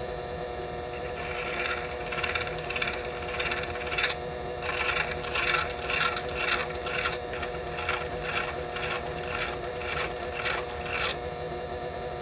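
A small lathe motor running steadily while a hand file is worked against the spinning lantern pinion, in regular scraping strokes about twice a second. The filing stops about a second before the end while the lathe keeps running. The file is dressing the ends of the newly fitted trunnions so that they sit below the surface.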